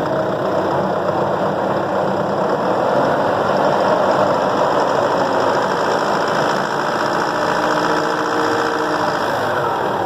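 Isuzu D-Max pickup engine running under light throttle, swelling slightly and then settling back, with the knocking noise that is being checked as a fault.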